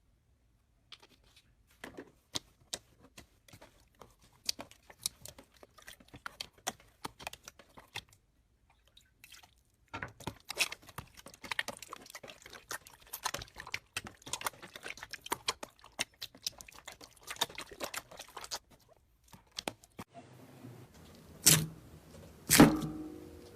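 Slime being squeezed and poked, giving quick irregular crackles and pops, with a few louder pops near the end.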